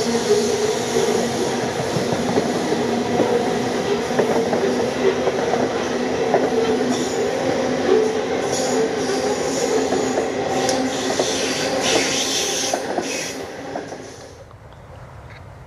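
Freight train hopper wagons rolling past, their wheels giving a steady squealing whine over scattered clicks and knocks from the running gear. Near the end the train noise drops away to a much quieter background.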